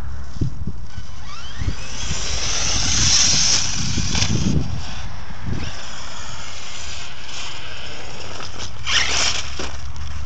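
Electric 1/5-scale RC monster truck (HPI Savage Flux HP) running over dirt and gravel: its brushless motor gives a rising whine as it speeds up, with the rush of tyres on gravel and a few knocks. A louder rush of noise comes near the end.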